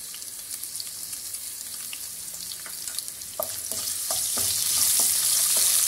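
Sliced onions, ginger and curry leaves sizzling in hot oil in a non-stick kadai as they are sautéed. About three and a half seconds in, stirring starts with a wooden spatula, making scattered scraping clicks against the pan, and the sizzle grows louder.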